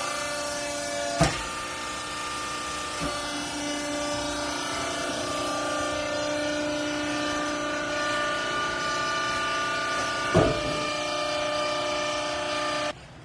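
Hydraulic vertical downstroke clothing baler running, its pump motor giving a steady whine, with two sharp clanks about a second in and near ten seconds in. The machine sound drops away abruptly just before the end.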